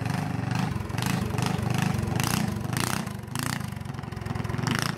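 Minibike's small engine running steadily while being ridden, a fast low putter.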